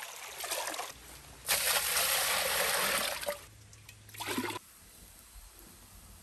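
Muddy, iron-oxide-laden water being scooped from a seep and poured: a light trickle, then a louder splashing pour lasting about two seconds, and a second, shorter pour a little later.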